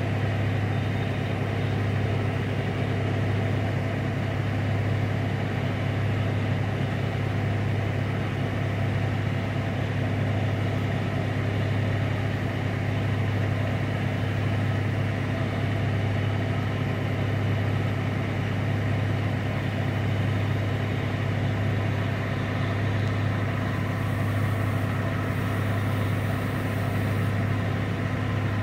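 An engine idling, a steady low drone that holds the same level and pitch throughout.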